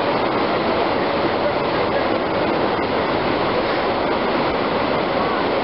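Whitewater rapids rushing steadily, the continuous noise of churning river water.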